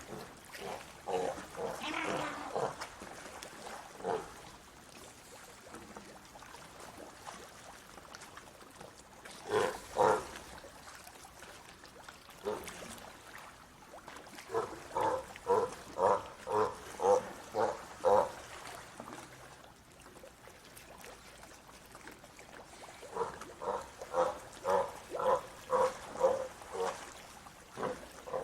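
Sea lion barking in bouts of short, repeated barks, about two a second, with pauses of several seconds between bouts.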